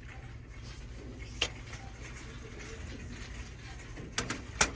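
A small picture frame being set back into its display box on a store shelf, with two sharp clicks a little after four seconds, over the steady low hum of the store.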